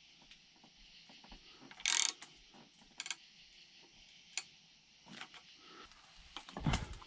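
Hand tools working a bolt to force out an ATV ball joint: a few short bursts of ratchet-like clicking with a sharp metallic click in the middle and a louder clank near the end.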